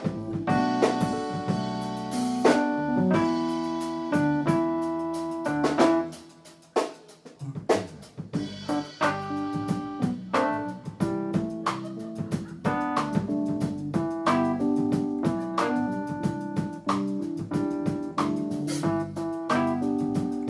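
Live band playing an instrumental break, with electric keyboard carrying the melody over guitar and drums. The music drops away briefly about six seconds in, then picks up again.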